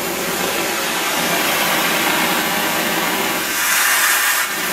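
Shotcrete rig running: a steady engine drone of the pump and air compressor under the hiss of compressed air at the spray nozzle, with a louder rush of hiss near the end.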